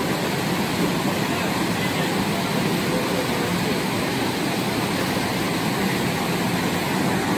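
Steady rush of water from the Bolshaya Khosta river and White Rocks waterfall in the canyon, an even, unbroken noise.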